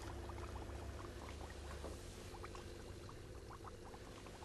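Faint bubbling in a glass bowl of water: many small, quick, irregular pops over a low steady hum.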